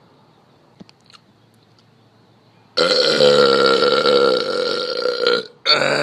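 A long, loud belch lasting nearly three seconds, starting about three seconds in; after a brief pause a second belch begins near the end.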